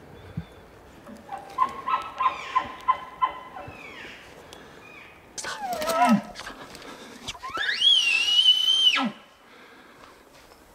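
Elk bugling: a run of about six short notes, a short falling call about six seconds in, then a long high whistling bugle, held steady and dropping sharply into a low grunt at its end.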